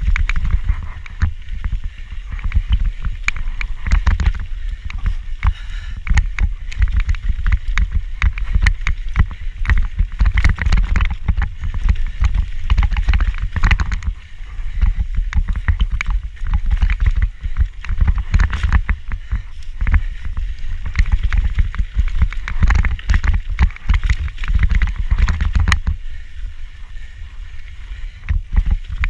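Handlebar-mounted action camera rattling loudly in its mount as a mountain bike descends a dirt trail: a dense, continuous clatter of clicks over a low rumble of tyres and wind on the microphone.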